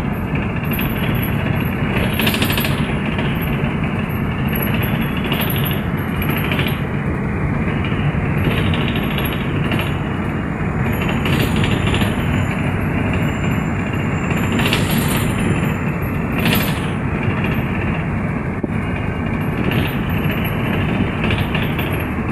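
Bus on the move, heard on board: steady engine and road noise, with a few brief louder sounds over it.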